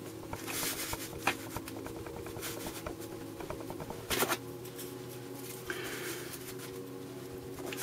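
A sheet of paper being slid and handled on a cardboard-covered bench, a soft rustling with a few light knocks, the loudest about four seconds in. A faint steady hum sits underneath.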